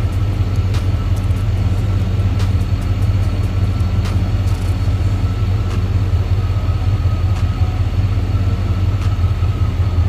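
A car engine idling steadily with an even low rumble: the 1990 Chevy Caprice being woken up after sitting undriven for over a year.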